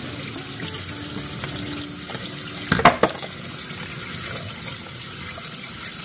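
Kitchen tap running steadily in a thin stream onto the bottom of a sink, with a short sharp knock about three seconds in.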